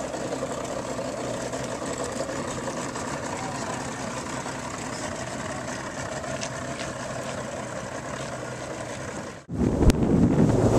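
Outboard motor of a small fishing boat running at low, idling speed as the boat moves slowly away from the dock, a steady low engine sound. About nine and a half seconds in it cuts off abruptly to louder wind buffeting on the microphone aboard a moving boat.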